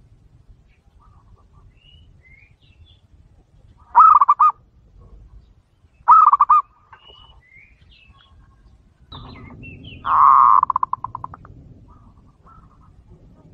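Zebra dove (perkutut) cooing: two short stuttering phrases about four and six seconds in, then a longer call near ten seconds that breaks into a rapid stutter and fades. Faint high chirps of small birds in between.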